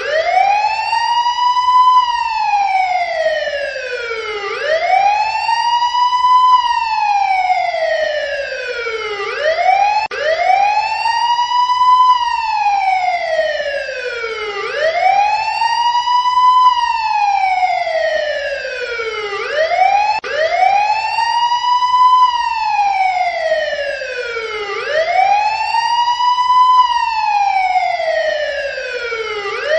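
Emergency-vehicle siren sounding a wail: one tone sweeps quickly up, then slides more slowly back down, about once every five seconds.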